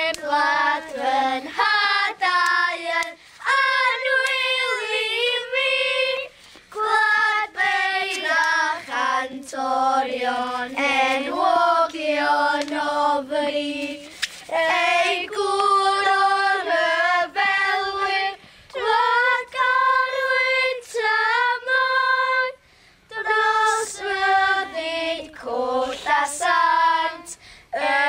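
A group of children singing together in unison, unaccompanied, in phrases with short breaks for breath.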